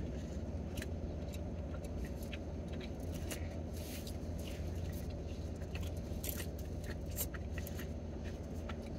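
Two people biting into and chewing flaky bakery pastries, with small crackles and mouth sounds scattered throughout, over a steady low hum in a car cabin.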